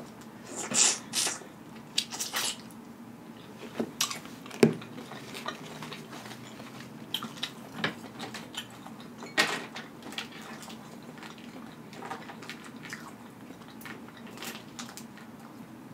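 Close-up eating sounds of boiled crawfish: wet sucking and smacking at the mouth and the shells being cracked and peeled by hand, in scattered short noises. The loudest come about a second in, around four and a half seconds and around nine and a half seconds.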